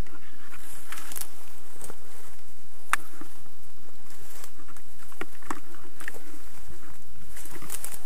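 Footsteps through forest undergrowth: irregular rustles and sharp snaps of twigs underfoot, the clearest snap about three seconds in and a quick run of them near the end.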